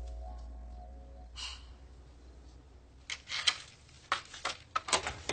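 A music cue fades out in the first second, then a short breath. From about three seconds in comes a quick run of sharp clicks and rattles: a front door's locks being undone.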